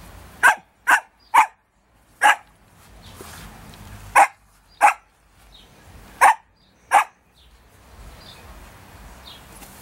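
Small dog barking in short, separate barks: three in quick succession, a single bark, then two pairs, eight in all.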